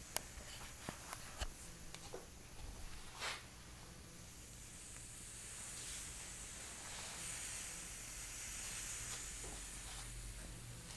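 Faint, soft hiss of a homemade Super Cat alcohol stove's ring of jet flames burning denatured alcohol under a titanium cup. The hiss grows a little stronger about halfway through, with a few small clicks in the first few seconds and a steady low hum underneath.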